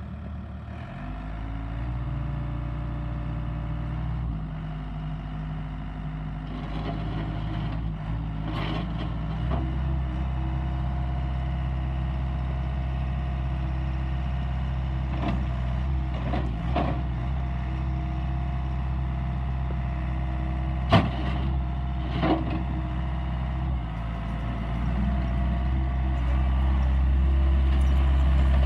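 Gehl RT175 skid steer's diesel engine running, picking up speed in steps and loudest near the end, with a few sharp metallic clanks in between.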